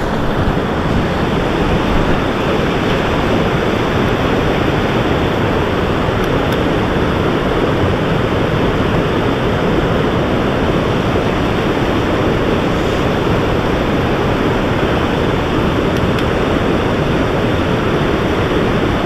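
Steady rush of a mountain headwater stream's flowing water.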